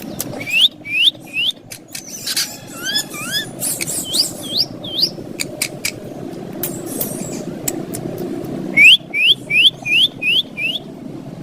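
Green ringneck parakeet calling in runs of short rising chirps, about two a second: three near the start, a few about four seconds in, and a run of six near nine seconds in, with sharp clicks between them.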